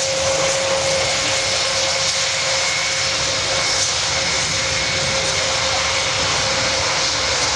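Airbus A400M Atlas's four Europrop TP400-D6 turboprop engines running steadily as the aircraft taxis, an even propeller and engine roar with a steady whine held at one pitch.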